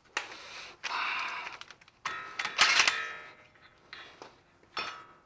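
Tools and metal car parts being handled: rustling and clatter in short separate bursts, the loudest a ringing metallic clank about two and a half seconds in.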